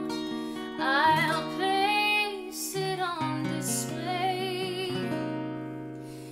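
A woman singing slow, held melodic phrases with vibrato over strummed acoustic guitar, growing quieter toward the end.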